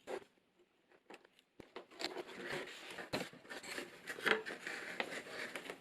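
A cardboard keyboard box being opened by hand: a few small clicks, then about two seconds in a run of scraping, rustling packaging and light taps.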